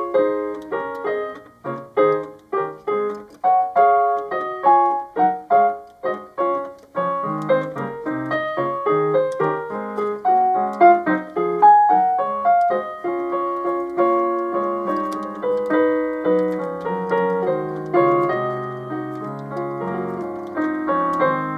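Background piano music: a steady run of struck notes, growing fuller and more sustained after about seven seconds.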